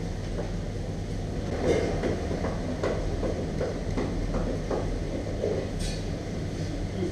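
Steady low machine hum of a small takeout shop's kitchen equipment, with scattered clicks and clatter over it.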